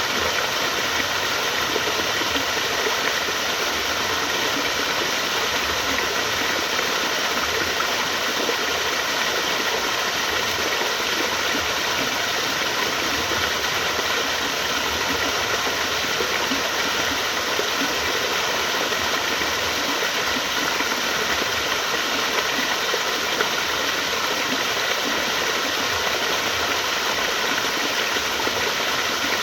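Flowing water rushing steadily and evenly, with no change throughout.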